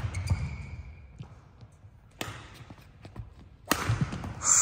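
Badminton rally on a court mat: two sharp racket strikes on the shuttlecock, about two seconds and about three and a half seconds in, over dull footfalls. Near the end comes a loud, high, steady squeal of court shoes gripping the floor in a lunge.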